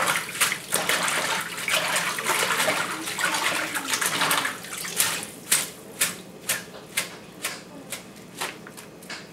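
Hands swishing leafy salad greens through water in a stainless steel sink, splashing and sloshing. About halfway in it turns into separate sharper splashes and drips, about two a second, as the wet greens are lifted out and moved to a bowl.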